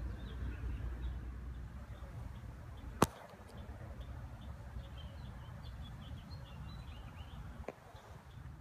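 Faint birds chirping in short, scattered notes over a low outdoor rumble, broken by one sharp click about three seconds in and a softer click near the end.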